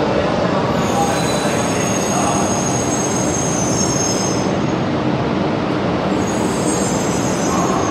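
E2 series Shinkansen train running along the station platform: a steady rumble of wheels on rail, with a high-pitched squeal that rises about a second in, fades after about four seconds and comes back near the end.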